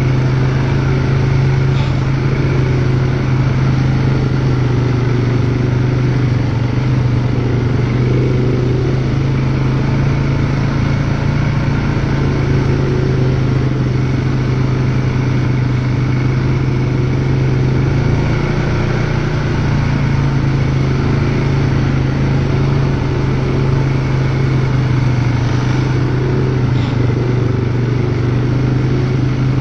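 ATV engine running steadily at a slow cruising pace, a constant low drone that barely changes pitch.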